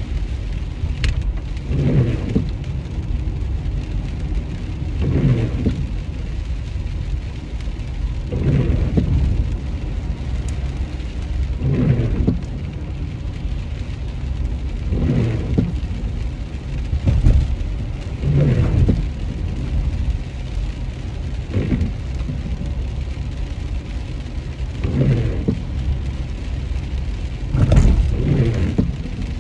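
Rain and steady road rumble inside a moving car, with windshield wipers swishing about every three seconds.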